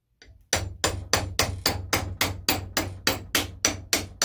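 Hammer tapping on a metal bushing sleeve to drive the inner core of a 3D printed plastic mold out of a cast polyurethane bushing. The quick, even taps start about half a second in and come about four a second.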